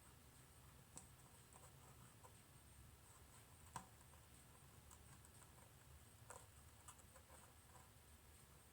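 Near silence: faint room tone with a low hum and a few light clicks and taps, about four or five scattered through it, the loudest a little before the middle, from small parts being handled as wires are fitted to a switch.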